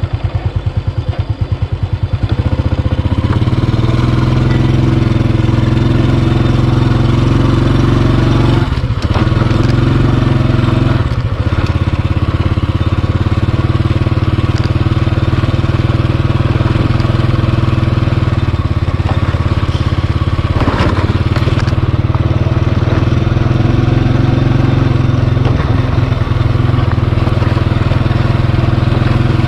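A small Honda underbone motorcycle's single-cylinder engine pulls away from a slow run about two seconds in, then runs steadily while riding along a dirt track. It eases off briefly a few times, around 9, 11 and 21 seconds in.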